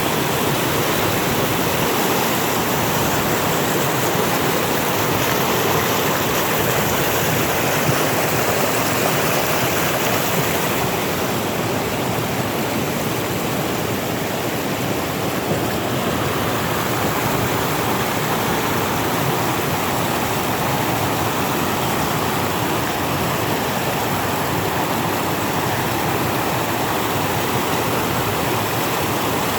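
Gapcheon stream running high and powerful, swollen by heavy rain the night before: a loud, steady rush of flowing water.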